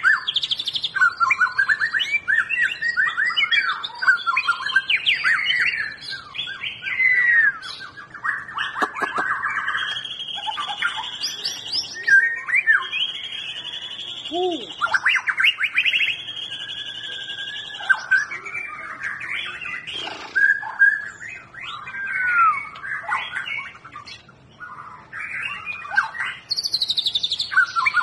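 White-rumped shama singing a long, varied song of quick trills and sweeping whistles, broken by several held high notes.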